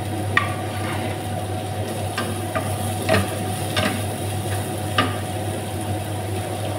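Wooden spatula stirring sliced red bell pepper and carrots in a hot frying pan, over a steady sizzle. There are about six sharp taps and scrapes of the spatula against the pan.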